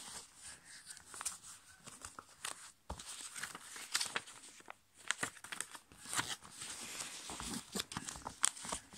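A sheet of A5 copy paper being folded by hand, crinkling and rustling in a string of short crackles as it is bent and its creases are pressed down against the tabletop.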